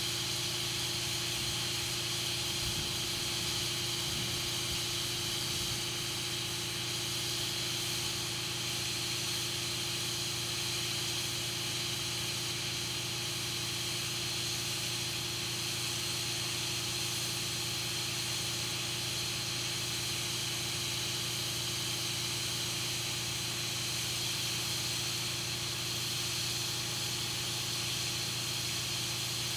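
Air rushing through the valve of a 20.8R38 tractor inner tube: a steady, unbroken hiss with a constant low hum under it.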